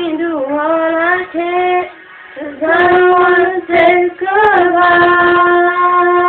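A woman and her daughter singing together without clear words, with sliding runs, a short break about two seconds in, and a long held note through the second half.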